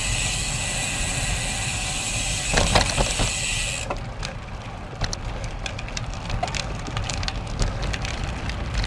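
Road bike riding noise: steady wind and traffic hiss with bright high-pitched bands that cuts off abruptly about four seconds in, leaving quieter rolling noise with many light clicks.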